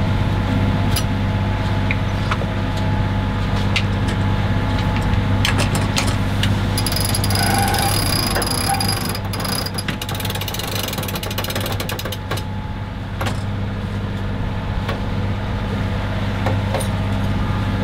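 A sheet winch ratcheting in irregular clicks, mostly in the middle stretch, as the sail is trimmed. Under it the yacht's inboard diesel engine runs with a steady hum.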